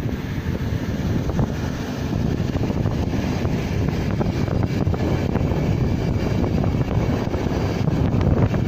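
Steady low rumble of a train running past on the line, with wind buffeting the microphone.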